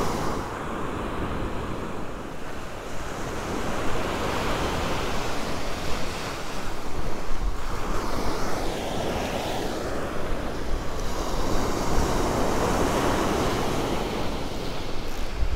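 Ocean surf breaking and washing up a sandy beach, with wind buffeting the microphone. The wash swells twice, about halfway through and again a few seconds later.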